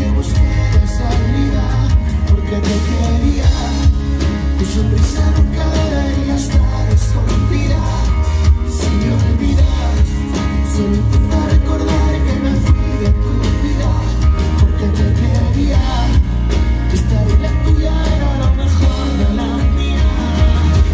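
Live rock band through a loud, bass-heavy PA: a male singer singing into a microphone over drum kit and electric guitar.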